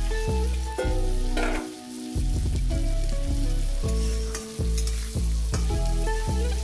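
Background music with a bass line changing notes about twice a second and short melody notes above it, over a faint sizzle of food frying in a pan.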